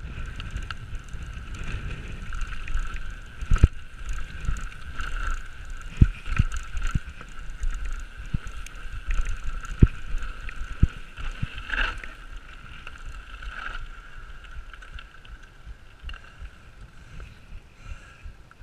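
Mountain bike rolling fast down a rough grass and dirt track, with wind buffeting the microphone, a steady high buzz, and a handful of sharp knocks as the bike hits bumps. The noise dies down over the last few seconds as the bike slows.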